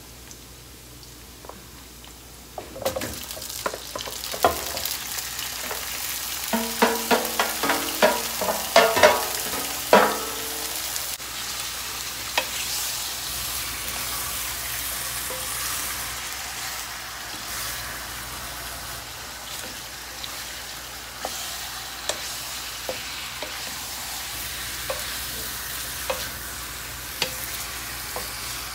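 Pieces of marinated pork and chicken frying in hot oil in a wok, a steady sizzle that swells a few seconds in as the meat goes in, stirred with a wooden spatula. Around the middle of the first half comes a run of sharp ringing knocks and clatter, and later only a few light taps and scrapes over the sizzle.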